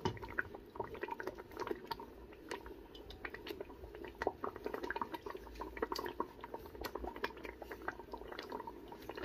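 Thick blended tomato, onion and pepper sauce bubbling in a hot pot as it is stirred, with many small irregular pops as bubbles burst.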